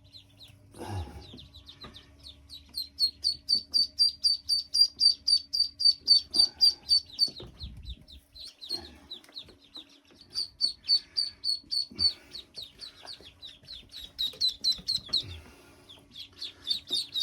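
A brood of newly hatched ducklings peeping in a brooding box. The high peeps come in fast runs of about five a second with short gaps between runs, and there are a few low knocks.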